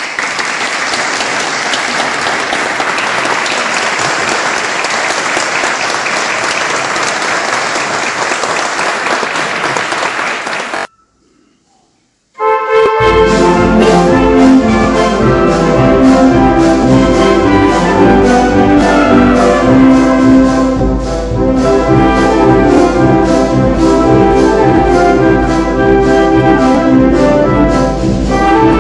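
Audience applauding steadily for about ten seconds, then cutting off into a moment of silence. After that an ensemble led by brass, with trumpets and trombones over a strong bass, starts a piece with an even beat.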